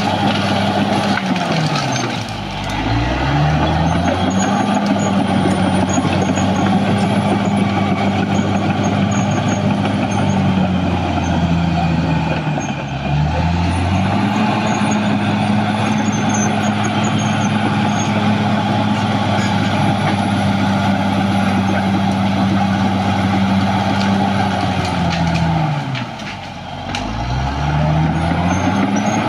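Caterpillar D6R XL bulldozer's diesel engine running hard and steady. Three times its pitch drops and then climbs back up, about two, twelve and twenty-six seconds in.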